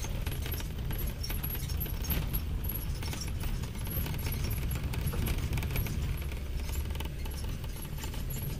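Renault 4L's small four-cylinder engine running at a steady low drone, heard inside the cabin while the car drives over a rough gravel track. The body and fittings keep up a constant light rattling and clinking over the bumps.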